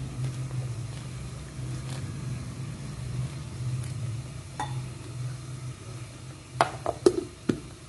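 Faint steady sizzling over a low hum, then a few sharp metallic clicks and knocks near the end as the steel mixer-grinder jar is handled.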